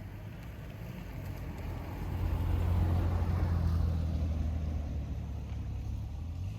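A motor vehicle passing: a low engine rumble that builds about two seconds in and slowly fades.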